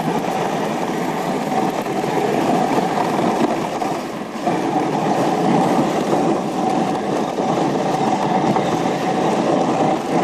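Dog sled running over packed snow: a steady rushing, scraping noise from the runners sliding on the trail, dipping briefly about four seconds in.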